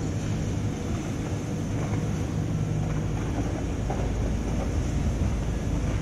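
Steady low rumble of outdoor city ambience, with a faint steady hum.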